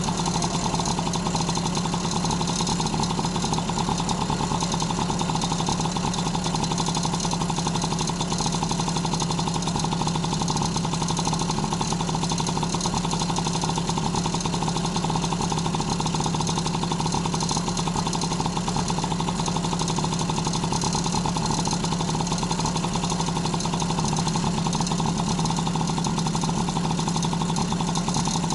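Honda Motocompo NCZ50's small air-cooled two-stroke single-cylinder engine running steadily at idle, with no revving.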